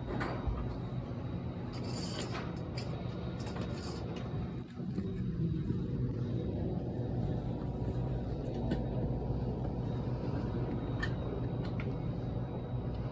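Air-conditioning condensing unit running with a steady low hum, dipping briefly about halfway through, with a few short metallic clicks as gauge hose fittings are handled and screwed onto the service ports.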